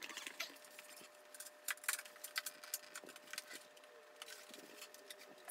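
Plastic visor of an Icon Airflite motorcycle helmet being worked by hand back onto the helmet. Plastic parts click and rattle in an irregular run of light clicks while the shield is pushed toward its mounts.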